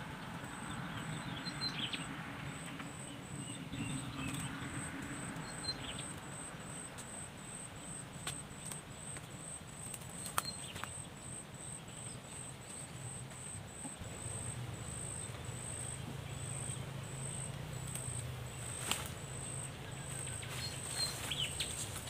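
Forest ambience: a thin, high-pitched call pulses steadily about twice a second, with a few short bird chirps and scattered sharp clicks and rustles from leafy twigs being handled.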